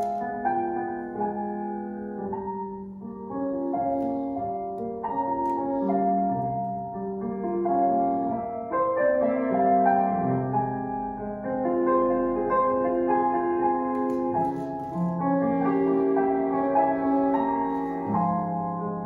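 Solo piano music: ballet class accompaniment for a barre exercise, a flowing tune with each note held about a second.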